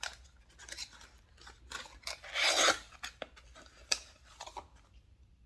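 A small cosmetic cream jar being handled and opened: scattered light clicks and taps, with a louder scraping rub lasting about half a second near the middle.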